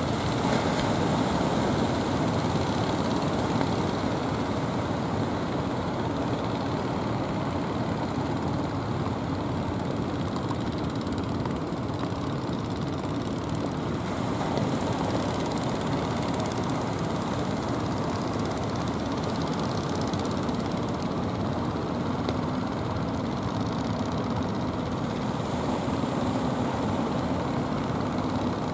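Steady rushing noise of wind and sea surf, heaviest in the low end, with no breaks.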